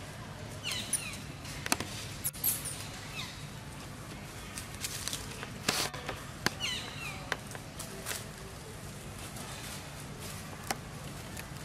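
Macaque giving short, high-pitched squeals that fall in pitch, three times, with several sharp clicks in between.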